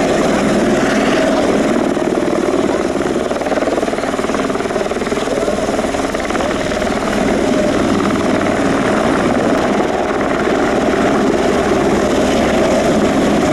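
Airbus Helicopters AS350 Écureuil single-engine turbine helicopter hovering close to the ground, its engine and main rotor running loud and steady.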